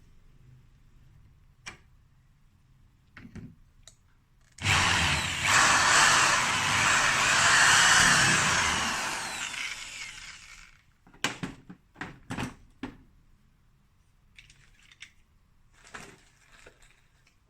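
Power drill running for about six seconds, then dying away, followed by a few sharp clicks and knocks.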